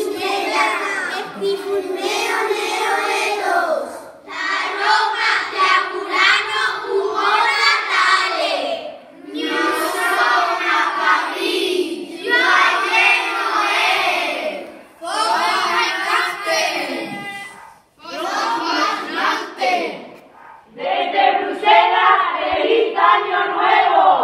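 A group of children's voices in unison delivering Christmas greetings in phrases of a few seconds, with short pauses between them.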